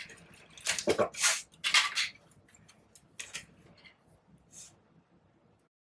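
Paper flowers and stems rustling and crinkling in several short bursts as the paper flower bouquet is handled and greenery is pushed in. The sound cuts off abruptly near the end.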